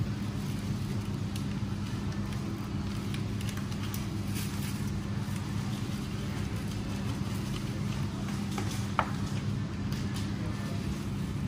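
Steady low machine hum, with light clicks of a knife against a plastic cutting board as a salmon fillet is cut into portions; one sharper click about nine seconds in.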